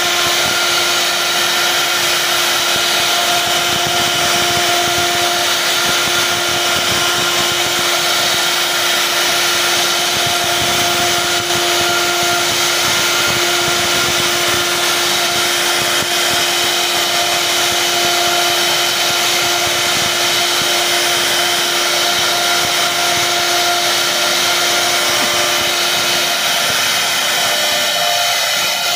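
CNC router spindle running at a constant pitch as its bit mills a carved relief into wood, with an even hiss of cutting over the steady hum.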